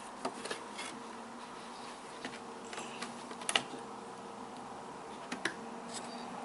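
Sparse light clicks and taps of a laptop's replacement LCD panel being handled and fitted into the lid frame, the loudest about three and a half seconds in, over a faint steady hum.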